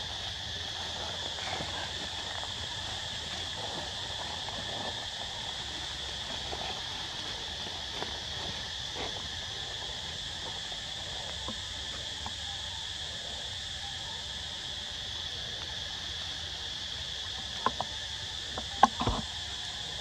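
Steady high-pitched chorus of insects, a constant even buzz, with a few sharp clicks near the end.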